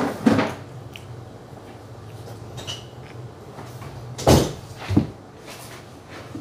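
Dull knocks of things being handled and set down on a table: one near the start, a louder one about four seconds in and another a second later, over a steady low hum.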